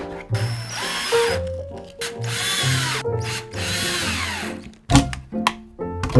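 Cordless drill driving screws into a wooden board in three runs, the motor speeding up and slowing down each time; a sharp knock about five seconds in. Background music plays underneath.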